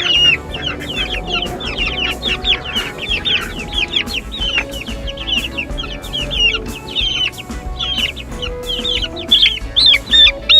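A brood of young chickens, about two weeks old, peeping continuously: many short, high, downward-sliding peeps overlapping one another. The peeps grow louder near the end.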